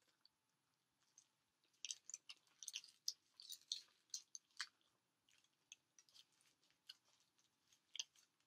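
Faint close-up chewing of a burrito, with small wet mouth clicks and crackles, busiest from about two to five seconds in.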